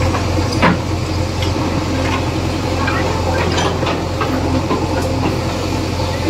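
JCB backhoe's diesel engine running steadily while its bucket works through broken concrete slabs and bricks, with a few sharp knocks and clanks of the bucket on rubble, the loudest just under a second in.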